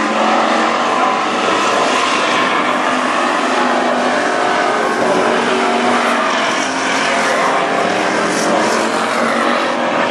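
WISSOTA Street Stock dirt-track race cars running hard at racing speed. Their V8 engines make a steady, loud, unbroken drone.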